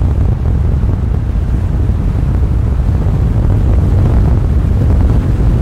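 Strong wind buffeting the microphone: a loud, steady, low rumbling roar.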